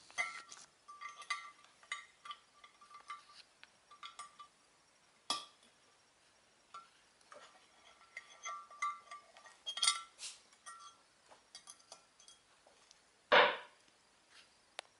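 Loose steel gearbox parts (the reverse idler gear, its shaft and rings) clinking and ringing in short, irregular taps as they are handled and fitted into the Toyota T50 gearbox casing, with one louder brief thump near the end.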